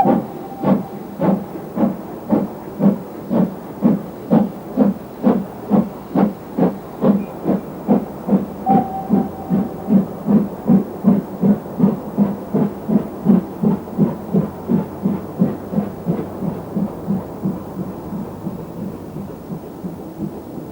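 Great Western Railway Manor class two-cylinder 4-6-0 steam locomotive working, its exhaust beating evenly about twice a second. The beats quicken slightly and fade over the last few seconds.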